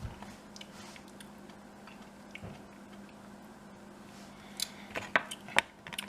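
Quiet handling with a few sharp clicks and taps, most of them about five seconds in, over a steady low hum.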